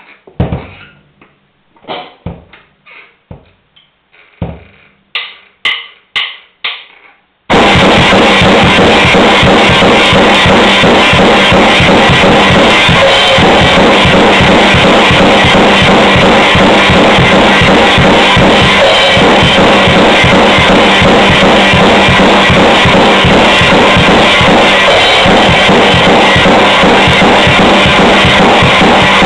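Drum kit with a chain-drive bass drum pedal and hi-hat pedal: a few separate warm-up strokes, then about seven and a half seconds in it breaks into continuous loud playing, with fast, evenly spaced bass drum strokes under snare and cymbals.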